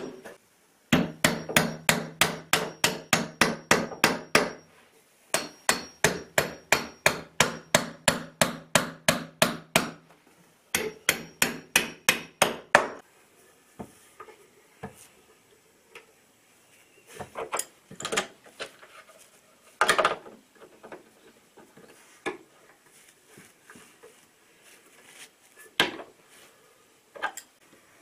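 Rapid, even hammer taps on a wooden bed frame, about four a second, in three runs of a dozen or more strokes with short breaks between. After that, scattered lighter knocks and clicks of hand tools as the headboard is bolted on.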